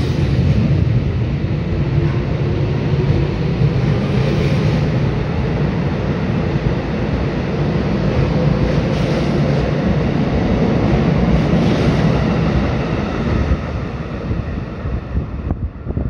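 Tokyo Metro 17000 series ten-car subway train pulling out of an underground station. The motor whine rises as it accelerates, then the wheels and running gear rumble steadily as the cars pass close by. The sound falls away as the last car leaves, about thirteen and a half seconds in.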